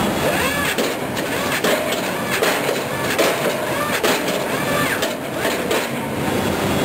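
Sany SR150C hydraulic rotary piling rig working at the bore hole, with repeated short metallic squeals and clanks from its drill head and auger.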